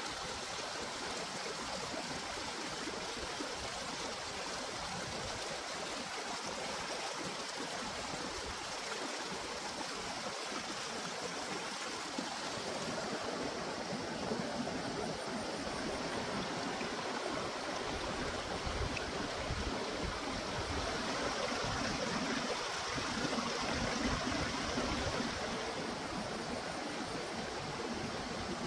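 Shallow rocky stream rushing over stones in small cascades: a steady wash of running water that grows a little louder about halfway through.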